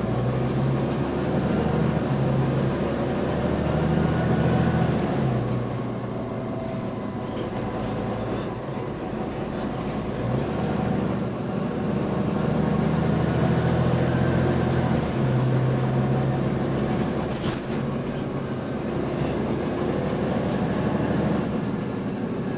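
Bus engine heard from on board, running with an exhaust leak: a steady low drone whose note strengthens and falls back several times as the bus pulls and then eases off.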